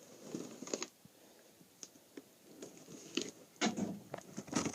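Handling noise: irregular crinkles, clicks and rustles, getting busier and louder near the end.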